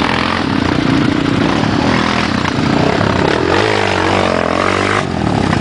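Single-cylinder off-road engine running steadily and loudly, with a short rev that rises and falls in pitch a little past halfway.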